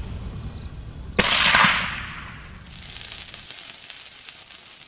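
A single sharp bang about a second in that rings away over half a second. After it comes a steady crackling hiss, dense with tiny pops, like drifting embers.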